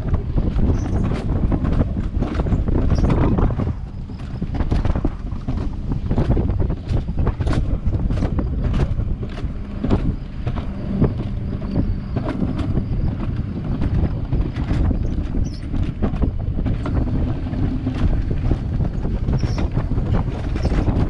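Wiegand alpine coaster sled running at speed on its steel tube track: a steady wheel rumble broken by frequent irregular clacks, with wind buffeting the microphone.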